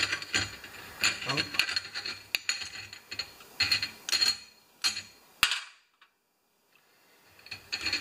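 Small metal carburetor parts clinking and rattling against a wire-mesh parts basket as they are set into it, in a string of sharp, irregular clicks. The clicks stop for about two seconds, then a few more clinks follow near the end.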